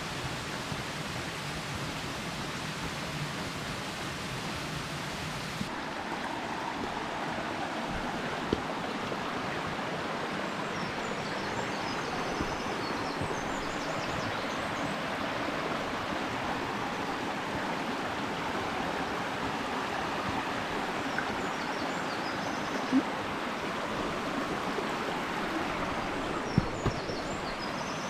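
Mountain stream running over rocks, a steady rushing that becomes fuller about six seconds in, with a few sharp knocks.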